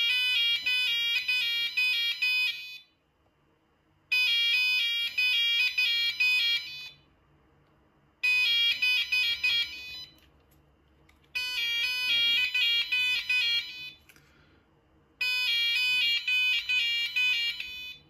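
Vintage Abacus alarm panel's electronic sounder going off in five bursts of about three seconds, with short gaps between them. Each burst is a fast warble of high stepped tones. This is typical of the panel signalling tamper alarms on its zones after being reset to defaults.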